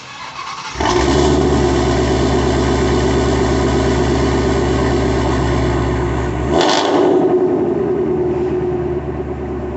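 A motor vehicle engine starting up about a second in and running loud and steady, with a sharp flare near the seven-second mark, after which its deep low rumble drops away.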